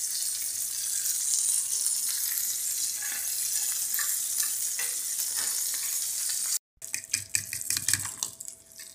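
Sausages sizzling in hot oil in a frying pan, a steady hiss with a few light scrapes of a fork turning them. After a cut about two-thirds of the way through, a fork clicks quickly against a bowl as eggs are whisked.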